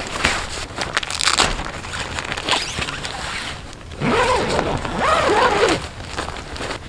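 Tent door zipper and nylon fabric being handled: scratchy rustling at first, then the zipper pulled along in two longer strokes about four seconds in, its rasping pitch rising and falling with the speed of the pull.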